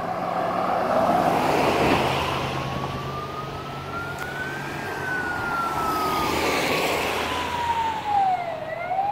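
An emergency vehicle's siren wailing slowly, its pitch climbing to a peak about halfway through, sinking for several seconds and starting to climb again near the end. Under it, a pickup truck drives past close by about a second in, with road traffic noise.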